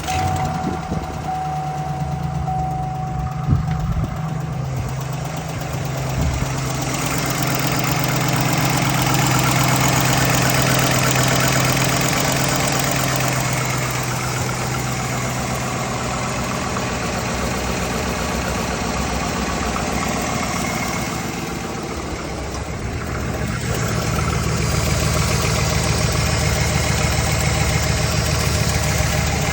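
Engine idling steadily with a knocking noise in its running, which the owner suspects could be a camshaft, lifter tick or piston slap. It grows a little louder a third of the way in and again near the end.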